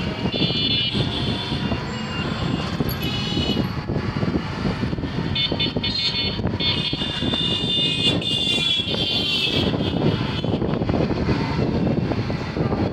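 Town street traffic heard from an open auto-rickshaw on the move: a steady rumble of road and vehicle noise, with high vehicle-horn toots several times, the longest from about five to nine seconds in.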